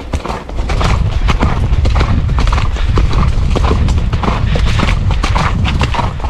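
A ridden horse's hooves beating quickly on a soft dirt and leaf-covered woodland trail, with a steady low rumble underneath.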